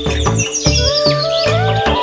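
Background music with a steady beat, with high sliding chirp-like tones over it.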